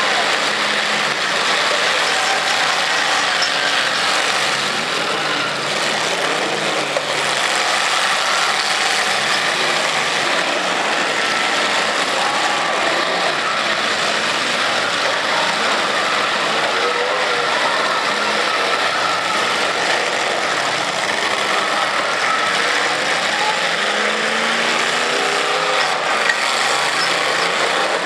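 Several demolition derby cars' engines running and revving at once in a dense, steady din, with a couple of brief sharp knocks from cars ramming each other.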